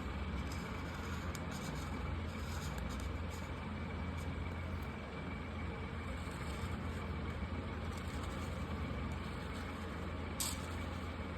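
Marker tips scratching on paper over a steady low hum, with one sharp click about ten and a half seconds in.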